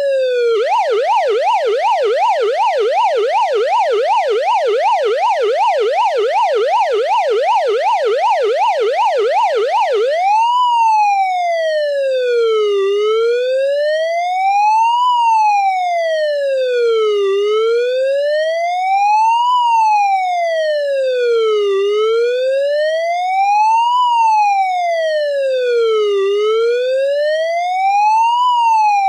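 US police car electronic siren in a fast yelp, warbling up and down about three times a second. About ten seconds in it switches to a slow wail that rises and falls about every four and a half seconds.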